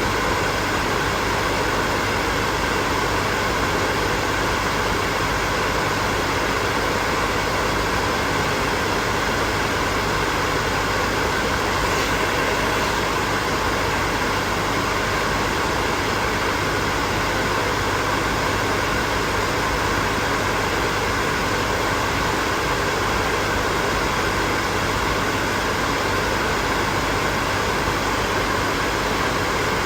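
Hair dryer running steadily: a continuous rush of air over a motor hum, with no change in speed.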